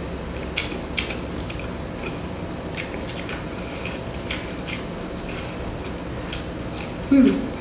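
Close-miked chewing of a mouthful of seafood with the lips closed: irregular soft wet clicks and smacks over a steady hiss. Near the end, a short hum of the eater's voice, falling in pitch.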